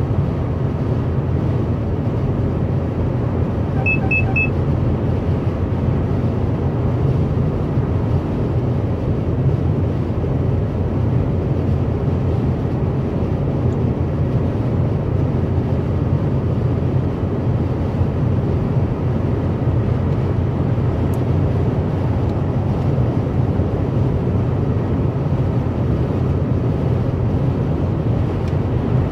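Steady road and tyre rumble with engine hum inside a car cruising on a motorway. About four seconds in there are three quick, high beeps.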